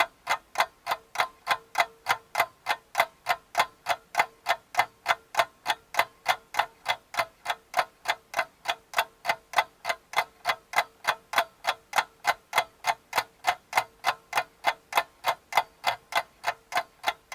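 Fast, perfectly even ticking, about three ticks a second, like a clock or timer sound effect, with a faint steady hum beneath it.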